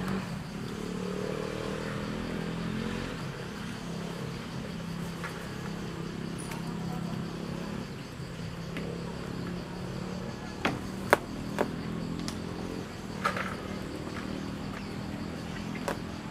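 An engine running steadily at idle, a low even hum, with several sharp clicks in the second half.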